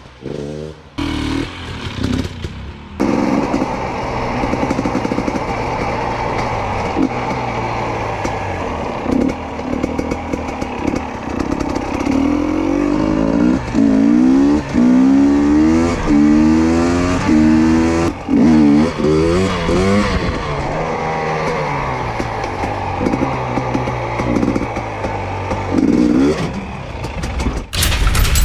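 2022 GASGAS EC250 two-stroke dirt bike engine being ridden, revving up and dropping back as the gears change, with its pitch climbing again and again. A sudden burst near the end cuts it off.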